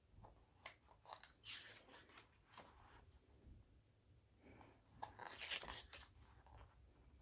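Faint rustling and crinkling of paper as the pages of an album photo book are handled and turned, in a few short bursts, the loudest about five and a half seconds in.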